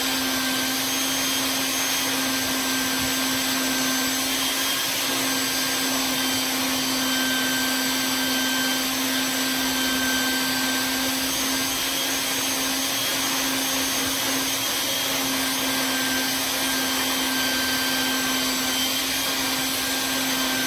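Vacuum cleaner running steadily, sucking dirt and crud off the top of an engine's intake manifold, a constant hum under its even rushing noise.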